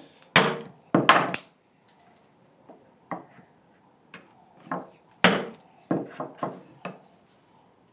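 Hand tools working beech wood: about a dozen irregular, sharp wooden knocks and taps, with the loudest strikes in the first second and a half and again about five seconds in.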